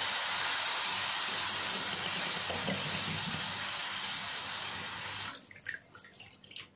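Water poured from a bowl onto sugar in a nonstick frying pan on the stove: a steady hiss that cuts off sharply about five seconds in, followed by a few light clicks and drips.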